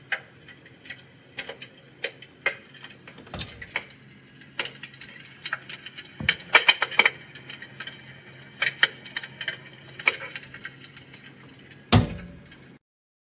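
Fire crackling: irregular snaps and pops of varying loudness over a faint steady hum, the loudest pop about twelve seconds in, then it cuts off suddenly.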